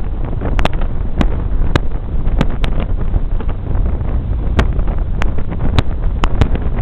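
Strong wind buffeting the microphone: a loud, fluctuating low rumble, broken by about a dozen scattered sharp clicks.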